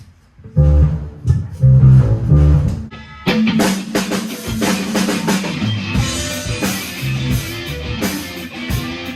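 Alternative rock band playing with electric guitar, bass and drum kit. A few loud, heavy low notes open it, then the full band with cymbals comes in about three seconds in and plays on.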